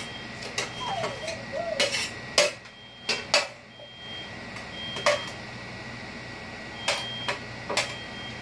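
A metal spoon clinking and scraping against an aluminium tray and stock pot as cooked fish is spooned into the soup: about ten irregular, sharp clinks over a faint steady hum.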